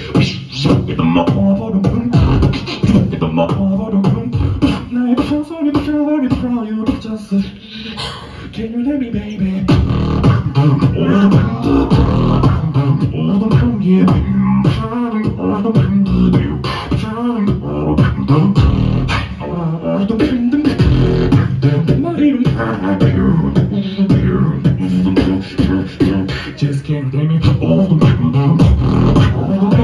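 Solo beatboxing into a handheld microphone through a club PA: a continuous rhythm of vocal kick and snare hits over a steady low hummed bass, easing off briefly about eight seconds in.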